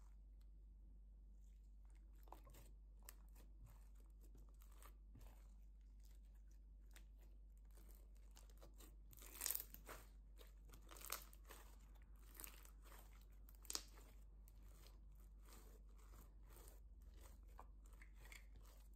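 Clear green slime mixed with tiny foam beads being stretched, folded and pressed by hand, crackling and crunching with soft clicks, with a few louder pops in the middle.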